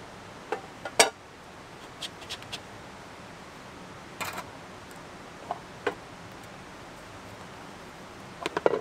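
Camp stove parts and cookware being handled and fitted together: short clicks and knocks, the sharpest about a second in, a few lighter ones in the middle and a quick run of clicks near the end.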